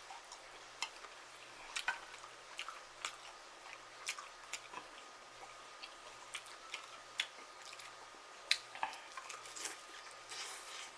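Close-miked chewing and wet mouth smacks from someone eating fried chicken wings glazed with hot sauce and honey, in short irregular clicks, with one sharper smack about eight and a half seconds in.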